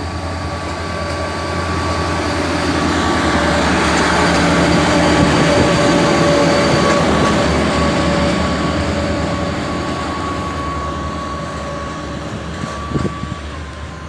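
Plasser & Theurer Unimat Compact 08-275/3S track tamping machine running past on the rails: its diesel engine drone and a steady high whine grow louder as it passes close by, then fade as it moves away.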